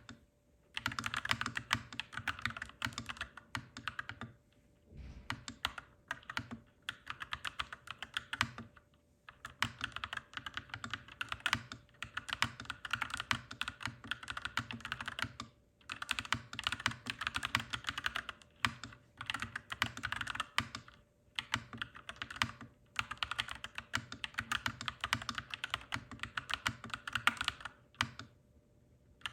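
Mechanical keyboard being typed on in fast, clacky runs of keystrokes, broken by short pauses every few seconds.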